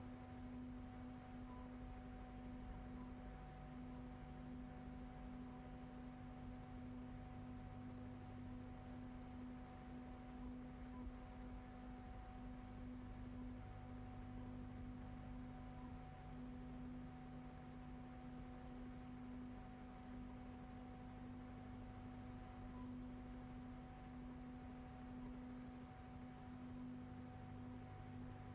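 Faint steady electrical hum made of a few constant tones, the lowest the loudest, with nothing else over it: the bare soundtrack of a silent film transfer.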